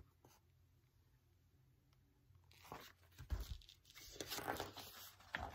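Near silence, then from about two and a half seconds in, the rustle and soft thump of a hardback picture book being handled and its pages turned.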